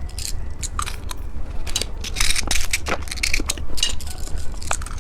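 Irregular crinkling and crunching close to the microphone, from candy or its crackly plastic packaging being handled.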